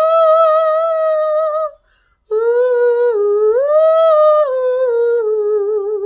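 A woman singing a short wordless tune: one long held note with vibrato, then after a brief pause a longer phrase that steps down, rises and falls again.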